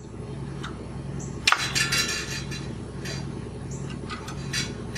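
Light metallic clicks and clinks from a bicycle front wheel being handled and turned, with one sharper knock about a second and a half in. A faint low hum runs underneath.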